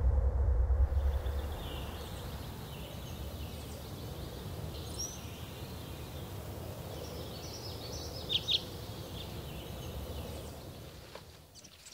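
Rural outdoor ambience with birds chirping now and then, two louder chirps a little after the eighth second; a low rumble fades out over the first second or two.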